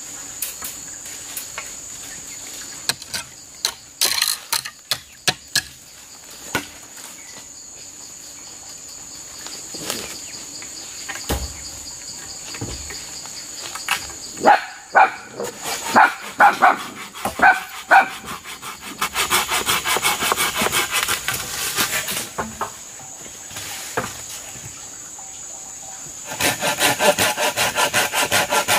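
A saw cutting wood in two bursts of quick back-and-forth strokes, over a steady high insect drone. Scattered knocks come first, and a run of short pitched calls is heard around the middle.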